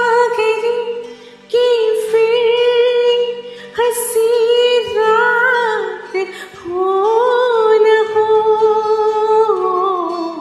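A woman singing a slow Hindi film melody solo into an earphone microphone, in long held notes across four phrases with short breaks between them.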